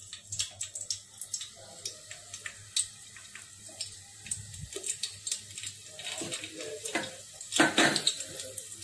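Green chillies frying in hot oil, sizzling with many small crackles and pops, with a louder burst of spluttering near the end.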